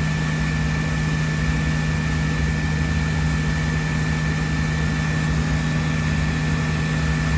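Newly fitted furnace induced draft (inducer) motor running steadily after power-up: a constant low hum with a thin, steady high whine above it.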